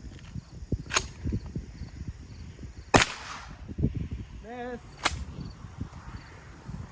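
A 12-gauge pump shotgun fires once about three seconds in, a single sharp report with a short ringing tail; the 1-ounce Remington Slugger slug misses the target. Two fainter sharp clicks or knocks come about a second in and about five seconds in, over a steady low rumble of wind on the microphone.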